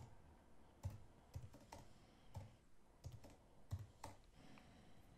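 Faint keystrokes on a computer keyboard as an IP address is typed: a string of separate, unevenly spaced key clicks that stop about four seconds in.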